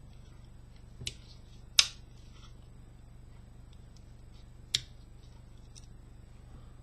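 Tools of a Victorinox Trailmaster One Hand pocket knife being folded and opened: a few sharp clicks as the springs snap, the loudest about two seconds in and another near five seconds, over a low steady hum.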